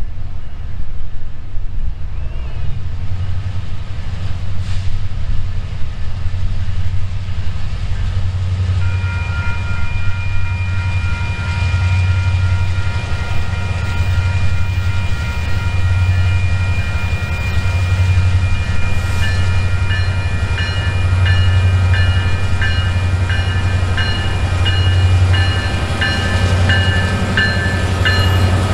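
Diesel freight train sound: a steady low locomotive engine rumble, joined about nine seconds in by several sustained high tones, with a repeating ringing pattern from about twenty seconds.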